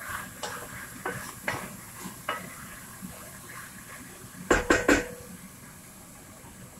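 Wooden spatula stirring beans and squash in an enamelled cast-iron pot, with light scrapes and clicks against the pot, then three loud sharp knocks in quick succession about halfway through.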